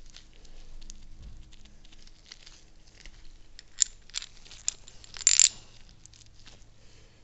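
Gloved hands handling greased metal parts of a mechanical tilt unit: light rustling and small clicks, with a couple of sharp ticks and a louder crinkling rustle a little after five seconds in.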